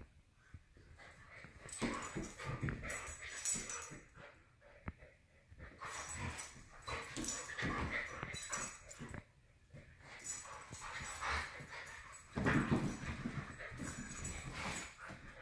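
A Siberian husky puppy and an adult husky play-wrestling: dog noises and scuffling that come in several bursts with short pauses between.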